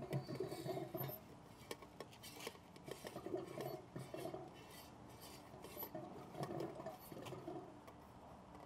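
Faint scattered clicks, taps and clinks of small hard parts being handled while a new LED bulb is fitted into a pool light fixture.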